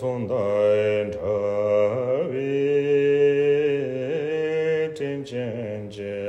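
A solo man's voice chanting a Tibetan Buddhist prayer to a slow, drawn-out melody, holding long low notes with small bends in pitch.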